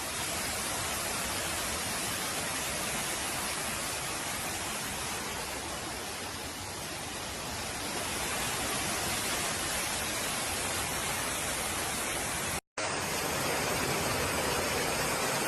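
Heavy downpour: a steady, even hiss of rain, broken once by a split-second gap near the end.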